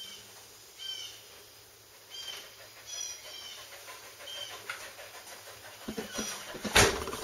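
Birds chirping outside the open doorway, then a heavy wooden door swung shut with one loud thump near the end, with a few lighter knocks just before it.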